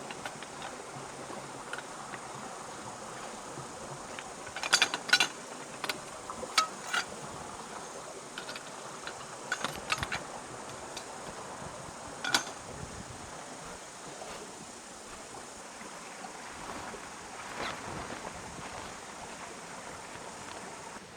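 Steady rush of a forest stream, with scattered sharp knocks and clicks: a cluster about five seconds in, more around seven and ten seconds, and a single one near twelve seconds.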